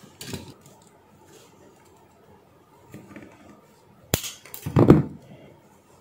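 Small handling sounds from a plastic plug and cable tie being worked by hand: a sharp click about four seconds in, followed by a short, louder rasping rustle.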